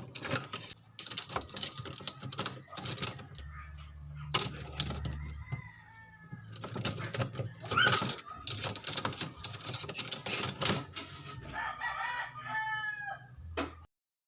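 A rooster crows at least twice over a busy run of sharp clinks and clatters, the sound of dishes being handled and washed. The sound cuts off suddenly near the end.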